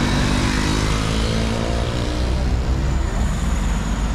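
Street traffic: a motor vehicle's engine passes close, rising slightly in pitch and fading after about two and a half seconds, over a steady low rumble of road noise.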